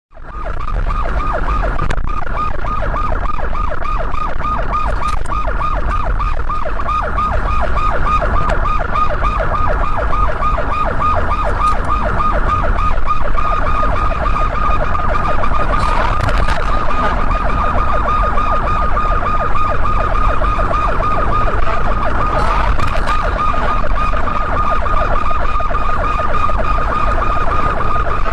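Police siren in a fast, continuous warble, with engine and road rumble underneath. It starts just after the opening and runs on unbroken.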